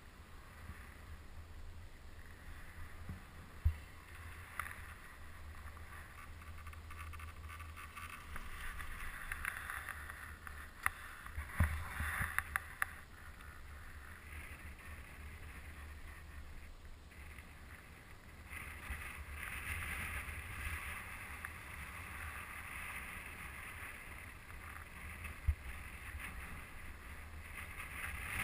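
Wind buffeting the microphone of a camera riding a moving chairlift, a steady low rumble with a hiss, broken by a few sharp knocks and a short run of clicks about twelve seconds in.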